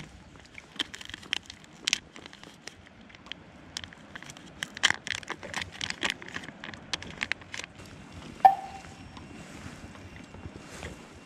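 Plastic pouch of Gulp! soft baits crinkling and crackling in the hands as it is opened and handled, with one sharp click and a brief ring a little past eight seconds.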